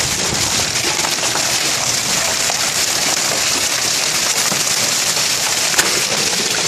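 Hail mixed with heavy rain falling on a yard, a dense steady hiss of many small impacts, with one sharper crack of a stone striking close by about six seconds in.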